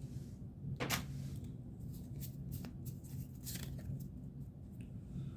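Pokémon trading cards being handled and flipped through: a few short rustles and flicks, the sharpest about a second in, over a low steady hum.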